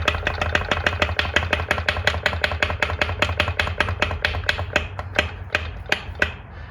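Rapid, even clacking, about seven knocks a second, from the crank and connecting rod of a 2002 Polaris Magnum 500 engine being rocked back and forth by hand. The knocks come from free play at the rod, which the mechanic takes for a bad rod. A steady low hum runs underneath, and the knocking stops shortly before the end.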